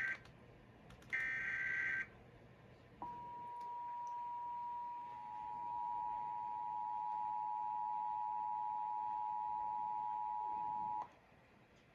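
Emergency Alert System test: the last two bursts of the screeching SAME digital header, each about a second long, then the EAS two-tone attention signal (853 and 960 Hz). The attention signal starts about three seconds in, its lower tone joins a couple of seconds later, and it holds steady for about eight seconds before cutting off abruptly.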